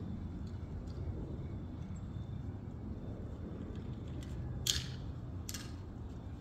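Two sharp snaps a little under a second apart from an Umarex Glock 17 Gen3 CO2 blowback BB pistol being fired at the targets, over a steady low rumble.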